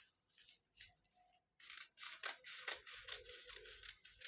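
Fabric being cut with scissors: a few faint snips, then a denser run of rustling cutting strokes from about a second and a half in.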